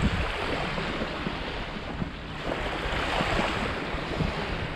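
Small waves washing onto a sandy shore, with wind buffeting the microphone.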